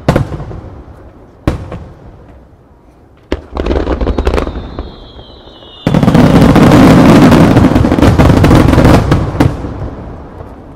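Starmine fireworks going off in rapid succession: a few single booms first, a falling whistle, then from about six seconds in a dense barrage of overlapping bursts and crackle that dies away near the end.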